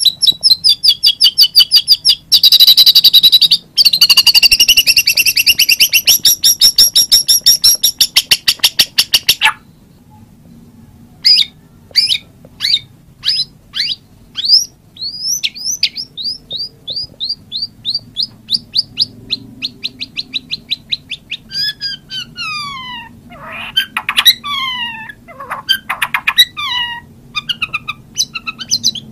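White-rumped shama singing. It opens with a long, fast run of rapid trilled notes for about nine seconds, pauses briefly, then gives a series of separate, sharp whistled notes, and near the end several quick downward-sweeping whistles.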